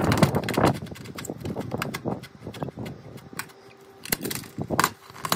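Scattered light knocks and clicks from metal roofing panels being handled and stepped on, irregularly spaced, after a short rush of noise at the start.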